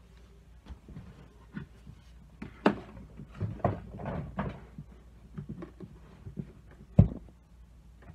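Scattered knocks, bumps and clatter in a small room as someone moves about, with a sharp, loud thump about seven seconds in.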